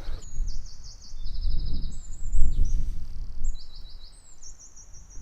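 A small songbird singing, a string of short high trilled phrases one after another, over a loud uneven low rumble.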